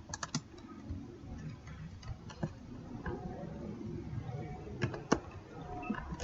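Computer keyboard being typed on, a sparse run of irregular, faint key clicks as code is entered.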